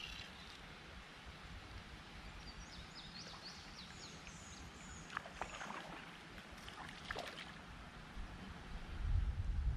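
Quiet creek ambience: a steady hiss of flowing water, with a small bird chirping a run of short high calls midway and a few light knocks. A low rumble builds near the end.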